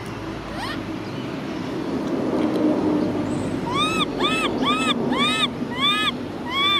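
Baby macaque crying: about six short, high, arched calls in quick succession in the second half, each rising and falling in pitch. Under them a low background rumble swells and fades.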